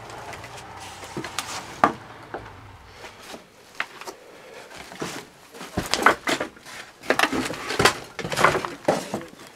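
Irregular knocks, bumps and rustling clatter of someone moving among loose debris and boards in a small cluttered cabin room, growing busier and louder about halfway through.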